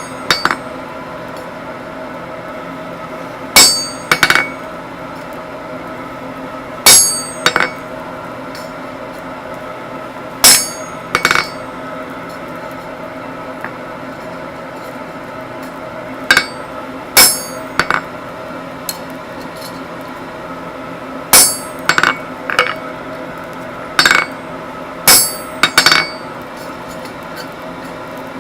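Hammer blows on a bar of hot 25 mm square mild steel at the anvil while a large nail is forged. The strikes ring sharply and come singly or in quick pairs and triplets with pauses of a few seconds between. A steady hum runs underneath.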